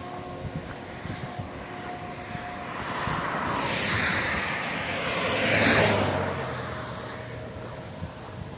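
A road vehicle passing close by: its tyre and engine noise swells to a peak about six seconds in, then fades away.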